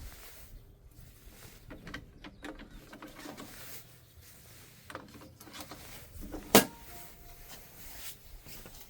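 Refilled ink cartridges being handled and pushed into an inkjet printer's carriage: scattered light clicks and knocks, one sharp click about two-thirds of the way through, then two short beeps.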